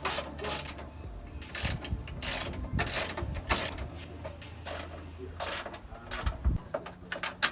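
Ratchet wrench clicking in quick, uneven runs as the 10 mm bolts holding the hood latch to the radiator support are worked loose.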